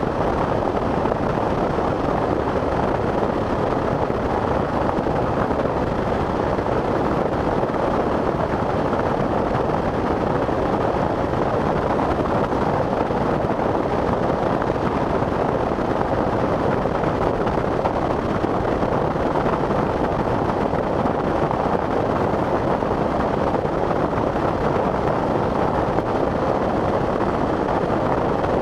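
Steady rush of a vehicle driving through hard rain: rain, tyre spray and road noise blended into one even noise with no break.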